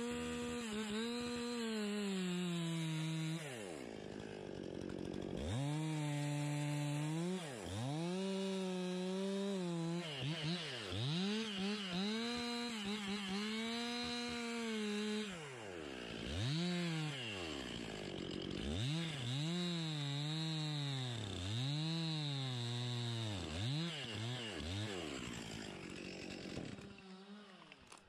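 Chainsaw cutting through a Douglas fir trunk, its engine pitch dipping as the bar bites into the wood and rising again, over and over. The saw fades out near the end.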